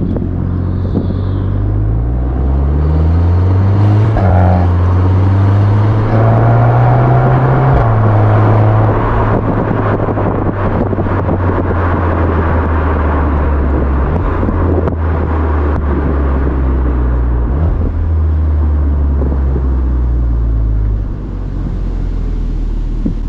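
VW Golf 8 R's turbocharged 2.0-litre four-cylinder heard at its Akrapovič exhaust tailpipes while driving in Normal mode. The engine note climbs over the first eight seconds with a couple of short breaks for gear changes, then holds a steady low drone, and drops as the throttle eases about three-quarters of the way through.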